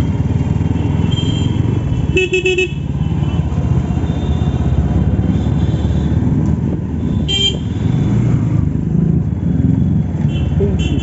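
Bajaj Pulsar NS160 single-cylinder motorcycle running along a street, its engine and road noise a steady rumble. A vehicle horn toots once about two seconds in, and a short high toot follows about seven seconds in.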